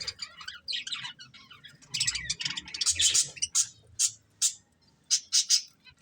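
Budgerigars chirping and chattering: a dense run of warbling chatter for about three seconds, then a string of short sharp chirps, the last three in quick succession.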